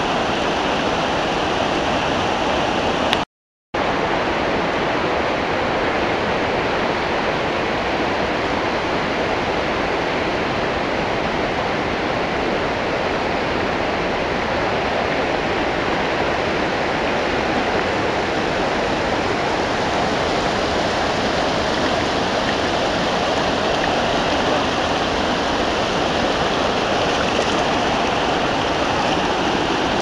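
Fast, muddy river rapids rushing over rocks: a steady, loud wash of water noise. It cuts out completely for about half a second about three seconds in.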